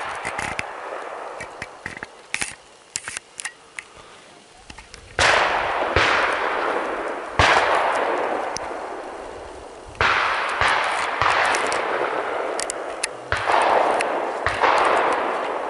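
Shotgun shots from a pheasant hunt, a run of them starting about five seconds in, some close and some farther off, often two in quick succession, each trailing off in a long echo. Small scattered clicks and crackles come before the shooting starts.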